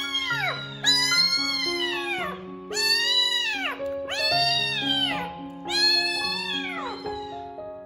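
Young kitten meowing over and over while being bathed, each loud call rising then falling in pitch and lasting about a second, with background music underneath.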